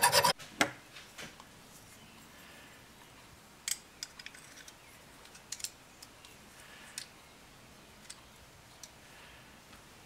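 The last few quick strokes of a hand file rasping on the steel blade tip, which stop within the first half second. After that come sparse light clicks and ticks of a small screwdriver and little metal parts as the folding knife's screws and handle scale are taken off.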